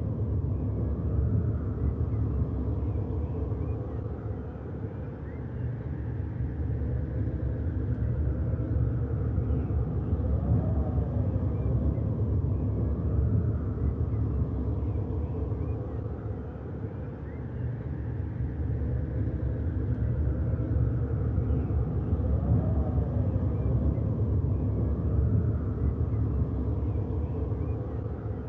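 Steady low rumbling ambience with a faint airy whoosh above it that slowly swells and fades, repeating about every twelve seconds.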